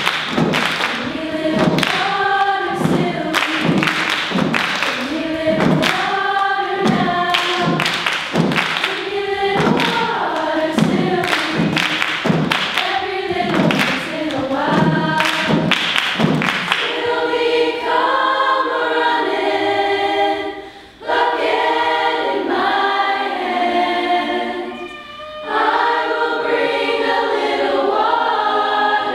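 Girls' high school chorus singing: for the first half, short rhythmic vocal figures over body-percussion claps and thumps; about seventeen seconds in the percussion stops and the choir holds sustained chords in close harmony.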